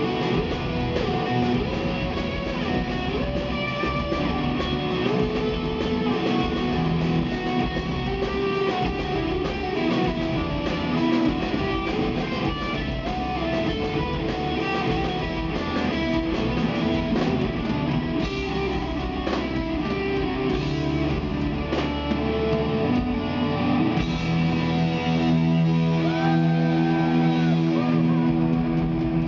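Live rock band playing: electric guitars, electric bass and drums together, settling into long held notes near the end.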